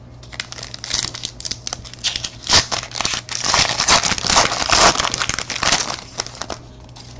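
A 2013 Panini Certified football card pack torn open and its wrapper crumpled by hand: a dense run of crinkling, loudest in the middle, that dies away about a second before the end.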